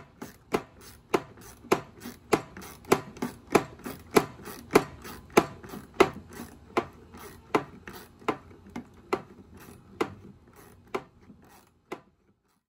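A steady series of sharp clicks or taps, about one every 0.6 seconds, stopping about a second before the end.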